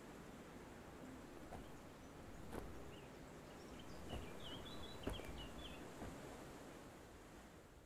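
Quiet woodland ambience with a few soft footsteps on a dirt path, about a second apart, and a short bird song a few seconds in.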